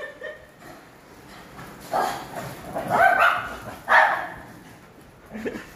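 A dog barking: three loud barks about a second apart.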